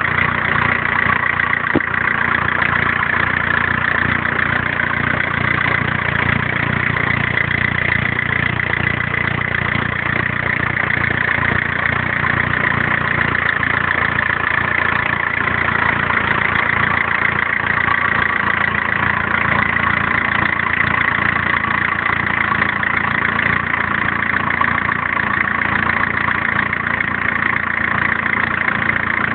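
Turbo-diesel (TDS) engine idling steadily, with a constant high-pitched whine over its low rumble.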